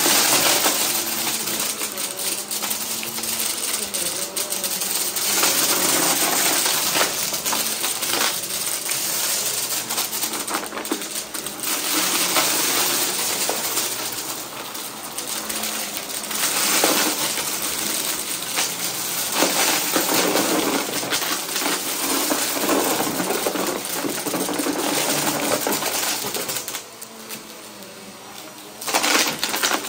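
Bagless upright vacuum cleaner running on carpet, sucking up confetti, sequins and small bits of cardboard, which rattle and clatter up into the clear dust bin. The sound drops away for about two seconds near the end, then comes back.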